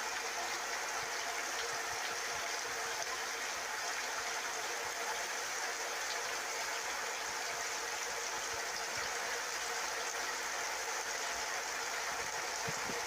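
Shower running, its spray making a steady, even rush of water.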